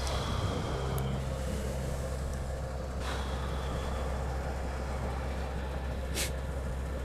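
Fuel dispenser pumping diesel through the nozzle into a car's tank: a steady low pump hum with a hiss of flowing fuel. There is a short sharp hiss about six seconds in.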